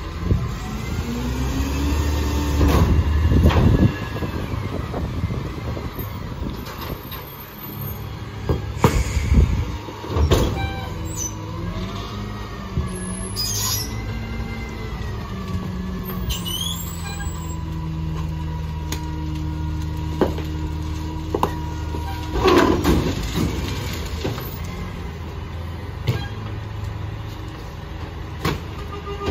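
McNeilus rear-loader garbage truck running a packer cycle: the Mack MRU's engine revs to drive the hydraulics, with a whine that rises and falls as the packer blade sweeps and compacts the load. Several loud knocks and hisses come from the moving packer mechanism.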